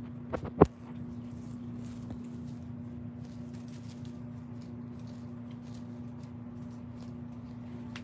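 Two knocks on the microphone about half a second in, the second much louder, as a rabbit bumps into the phone. After that a steady low hum runs on, with faint scattered ticks.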